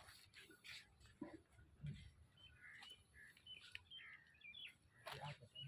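Small birds chirping faintly in a quick series of short, high chirps through the middle of the stretch, with a few faint scattered knocks.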